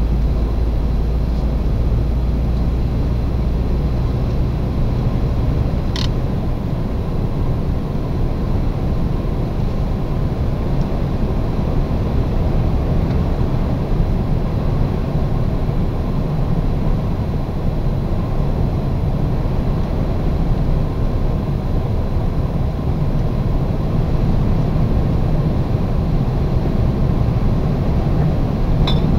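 Steady engine and road noise of a lorry on the move, heard from inside the cab. A deep low drone is strongest for the first five seconds, then eases. A single sharp click comes about six seconds in.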